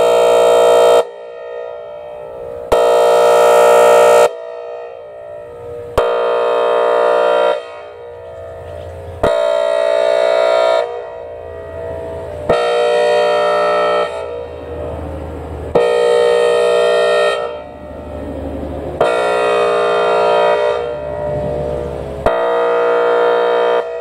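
Whelen WPS-4004 electronic outdoor warning siren sounding its air horn tone, a harsh steady multi-tone blast about a second and a half long, repeating roughly every three seconds, about eight times, while the speaker array rotates. It is run as a maintenance test to work a sticking rotator back in.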